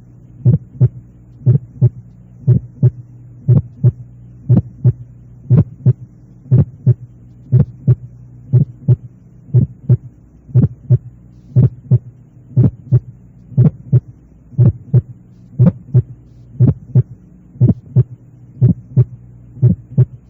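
Heart sounds heard over the pulmonic area (second left intercostal space): paired beats about once a second, the second sound louder than the first, over a steady low hum. A pulmonary ejection sound, an early systolic click just after the first sound, is added to the normal sounds and made to grow louder and then fade; it is typical of pulmonary valve stenosis and pulmonary hypertension.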